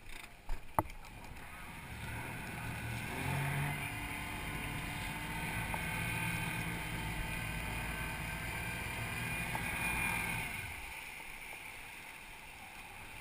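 Motorboat engine running: it comes up about a second and a half in, holds a steady hum with a higher whine, then dies away near the end, over the hiss of wind and water. A sharp knock sounds just under a second in.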